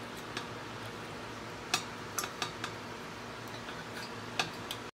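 A few light metallic clicks and ticks of small model steam engine parts being handled and fitted, over a faint steady hum.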